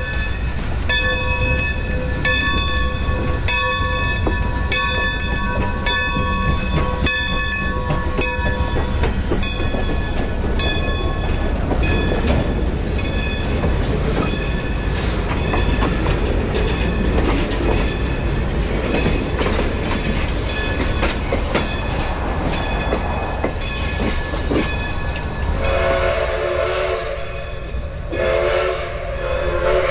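1924 Baldwin steam locomotive working with a freight train: its bell rings about once a second for the first several seconds, then the train runs with a steady rumble and clatter, and near the end its steam whistle blows two long blasts.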